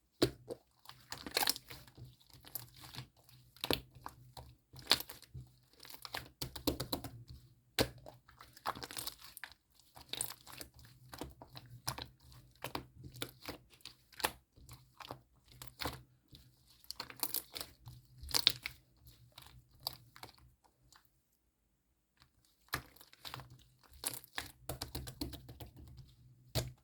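Water slime being squished, stretched and folded by hand, making dense, irregular sticky crackles and pops, with a short pause a few seconds before the end.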